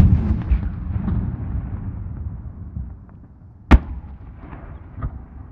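Aerial firework shells bursting: a loud sharp bang at the start followed by a long rolling echo that slowly fades, a second sharp bang a little over three and a half seconds later, and a smaller one about five seconds in.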